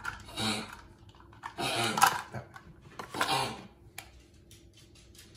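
A small dog barking three times, with light clicks of a wire whisk against a mixing bowl in between.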